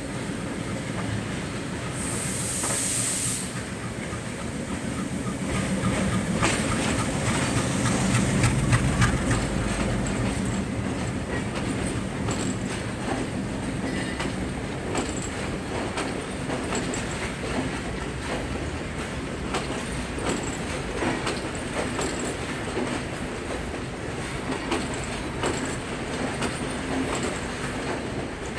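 Diesel train running over the tracks, its wheels clicking over the rail joints, with a brief hiss about two seconds in. A low rumble grows loudest around eight seconds and then settles.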